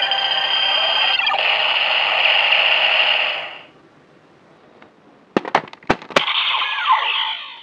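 DX Gaim Ridewatch toy's speaker playing an electronic sound effect that fades out about three and a half seconds in. Then come several sharp plastic clicks as the watch is fitted into the Zikan Girade toy blaster, which starts its own electronic sound effect with gliding tones near the end.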